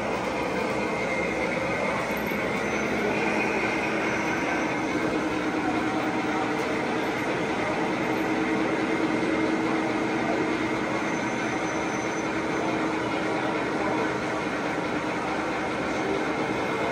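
Model trains running on an exhibition layout: a steady rolling rumble of wheels on track, with a faint steady hum.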